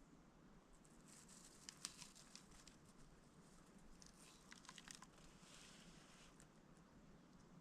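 Near silence, with faint scattered rustling and small clicks for a few seconds.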